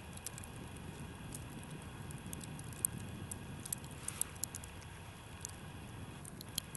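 Quiet outdoor ambience: a faint, steady low wind rumble with scattered light ticks and patters.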